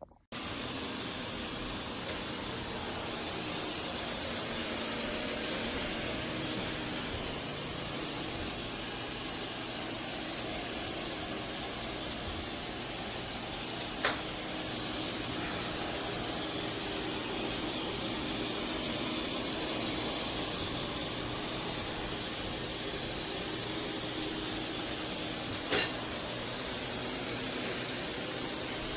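eufy S1 HydroJet robot vacuum running with a steady whooshing suction noise that starts abruptly, with two brief sharp clicks, about halfway through and again near the end.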